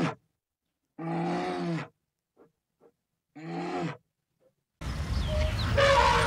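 Brown bear growling: three drawn-out, moaning growls of about a second each, set apart by silence, with two faint clicks between the second and third. About five seconds in, a steady outdoor noise with a low rumble takes over.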